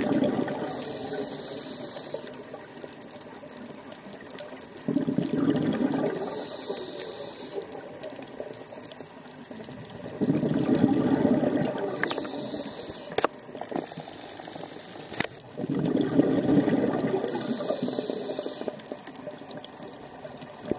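Scuba diver breathing through a regulator: about every five seconds a bubbling rush of exhaled air that fades away, with a short hiss of inhalation between each one.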